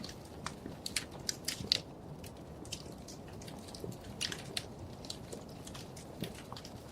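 Wood fire crackling in a fireplace: irregular sharp pops and snaps, several a second, the loudest about two seconds in, over a low steady rumble of the flames.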